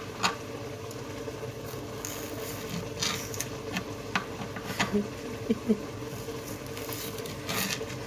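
Knife cutting corn on a cutting board: irregular, slow knocks and clicks of the blade, over a steady low hum.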